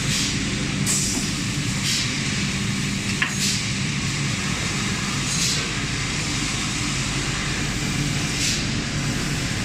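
Steady machine hum from a robotic laser welding machine at work, with short hissing bursts about every one to three seconds.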